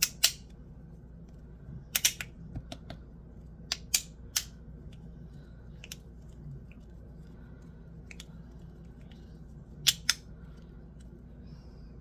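Bean Slider fidget slider clicking as it is worked in the hand: sharp snaps, mostly in quick pairs a fraction of a second apart, coming a few times with pauses between.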